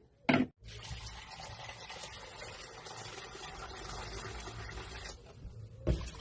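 Water running steadily for about four seconds, filling a container, and stopping abruptly. A short knock comes just before it starts and another just after it stops.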